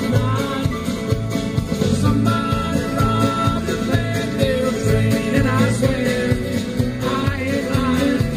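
Live band playing a country-rock song, guitars over a steady beat.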